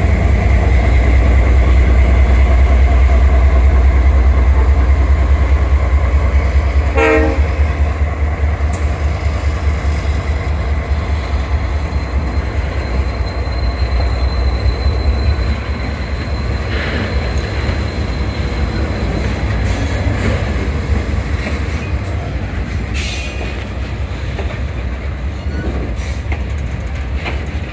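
Diesel freight locomotives running with a heavy, low rumble that gradually fades. A short horn toot comes about seven seconds in, and a few metallic clanks come in the later part.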